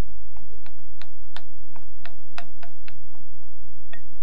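A utensil scraping and clicking against a mixing bowl as wet cake ingredients are scraped out into a bowl of dry ingredients: a quick, irregular run of small sharp clicks, about three or four a second, over a steady low hum.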